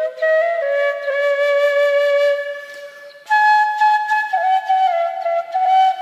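Bansuri (bamboo flute) playing a slow solo melody with long held notes and small pitch ornaments. The first phrase fades a little before halfway, and a new, higher phrase begins just after three seconds in.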